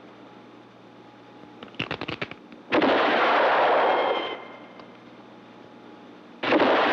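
A quick run of metallic clicks from a brass-framed lever-action rifle being handled, then two loud gunshots about three and a half seconds apart, each with a long ringing tail of over a second.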